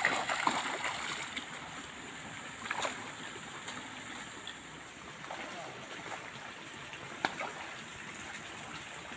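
Light splashing of pond water at a keep net, loudest in the first second, with a few sharp clicks and a steady high-pitched hum behind it.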